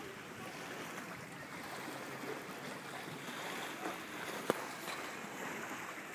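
Steady wash of small waves on open water with light wind on the microphone. One sharp click about four and a half seconds in.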